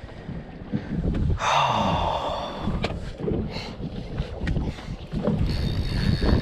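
Wind rumbling on the microphone aboard a fishing boat on open water, with a brief rushing burst about a second and a half in and a few handling knocks.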